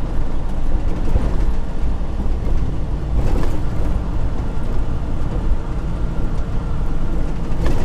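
Steady in-cab drone of a Freightliner Cascadia semi-truck cruising at highway speed: low engine rumble with tyre and road noise.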